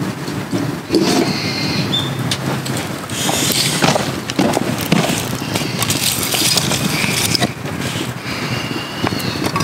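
Split wood kindling and feather sticks catching fire and crackling as flames take hold, with many short snaps and a few short high chirps from birds.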